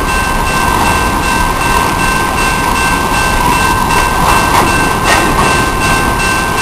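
Paducah & Louisville Railway freight train running along the track: a steady rumble and rail noise, with faint repeated clicks of the wheels.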